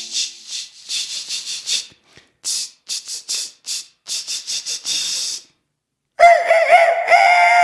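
Soft shaker strokes like a maraca, in uneven groups, stopping about five and a half seconds in. After a brief silence a loud rooster crow starts, wavering at first and then held as one long call.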